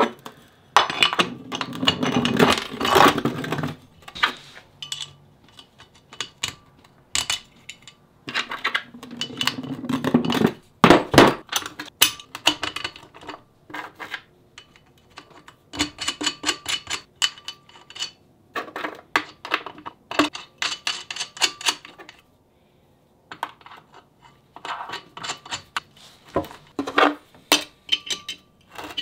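Small steel hardware clinking and rattling as bolts, nuts and washers are picked up and fitted through a pipe flange onto a cast-iron brake rotor, with some scraping of metal on metal. In the second half there are runs of quick, even metallic clicks as a small wrench tightens the nuts.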